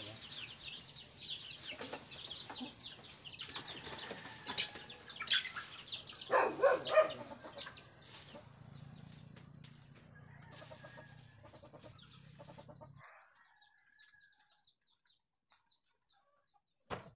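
Free-range chickens clucking and flapping their wings as they crowd in to feed, busiest in the first half. The sound thins out after about eight seconds, fades to near silence in the last few seconds, and a single sharp knock comes just before the end.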